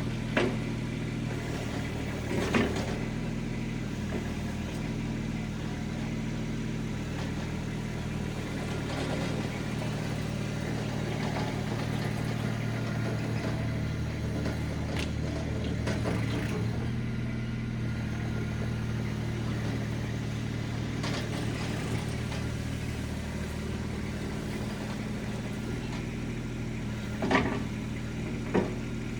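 Mini skid steer engine running steadily, broken by a few sharp knocks, two of them close together near the end.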